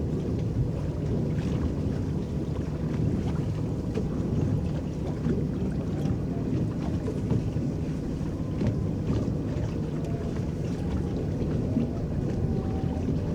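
Electric paddle boat moving across a lake: its paddles churn the water in a steady low wash, with small splashes and some wind on the microphone.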